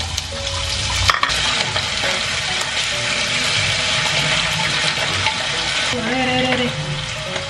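Diced potatoes sizzling as they fry in hot oil in a pan, stirred with a wooden spatula, with a sharp knock about a second in.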